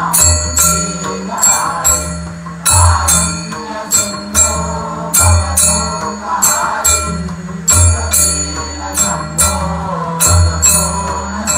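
Temple aarti music with a steady rhythmic beat and ringing bells, with sharp strokes several times a second that fit hand-clapping or cymbals.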